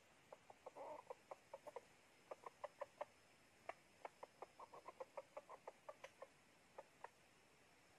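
Faint chicken clucking: quick runs of short, sharp clucks, several a second, broken by brief pauses. It is a decoy-chicken call of the kind played or kept to lure wild junglefowl.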